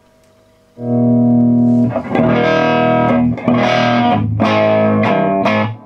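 Electric guitar chords played through a hand-built Fender 5F1 Tweed Champ kit amp, with a single 6V6 output valve, into a four-speaker cabinet, the volume at about 5.5. One chord rings out about a second in, followed by several more strummed chords. The tone has a bit of dirt, light overdrive from the extra cathode bypass capacitor in the first stage.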